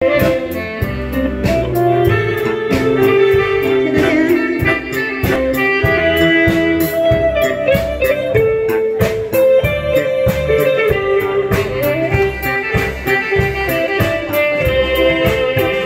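Live band with electric guitar, bass and drum kit playing the instrumental introduction of a Taiwanese pop song, with a steady drum beat under a guitar melody.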